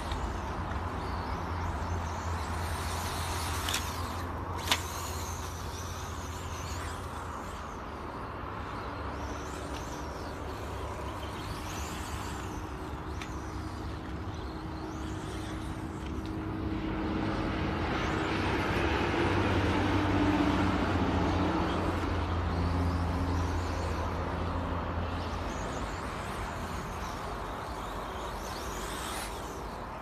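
Radio-controlled model cars running on an off-road dirt track: high-pitched motor whines rise and fall again and again as the cars accelerate, brake and pass. A steady low hum runs underneath, and there is one sharp click about five seconds in.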